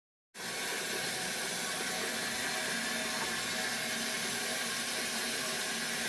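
Steady hiss of mains water rushing through an opened filling loop into a Gledhill Pulsacoil thermal store as it is filled for commissioning, starting abruptly just after the opening.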